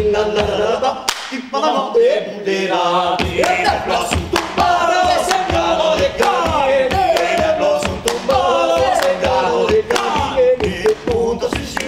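Male vocal group singing a cappella polyphony, several voices together. The beat is kept by steady hand-clapping and foot stomping on wooden boards, and the low stomping drops out for about two seconds shortly after the start.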